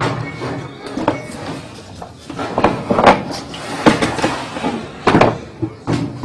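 Irregular clunks, knocks and scrapes of a washing machine's wash basket being lowered into the tub and fitted onto the drive shaft.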